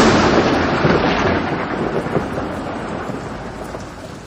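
Thunderclap sound effect: a loud crash that rolls on as a long rumble and fades away steadily.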